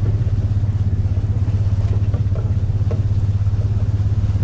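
Engine of a Mule utility vehicle running steadily as it drives along a leaf-covered trail, a low, evenly pulsing drone.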